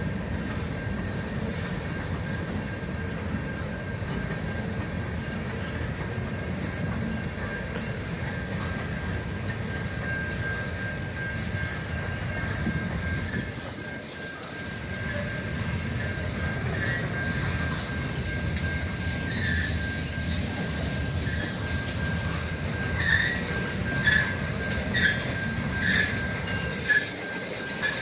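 Freight train cars rolling past with a steady low rumble of wheels on rail. A thin, steady wheel squeal joins about a third of the way through, and a run of sharp, evenly spaced clicks comes in over the last few seconds.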